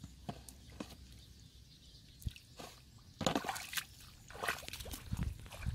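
Bare feet squelching and sucking through thick, wet mud, with small drips and splats. Two louder stretches of squelching come about three and four and a half seconds in.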